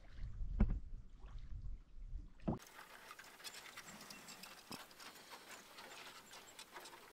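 Canoe being paddled on calm water: paddle strokes in the water over a low wind rumble on the microphone, with two louder splashes. About two and a half seconds in it cuts to a quiet outdoor ambience with faint scattered ticks.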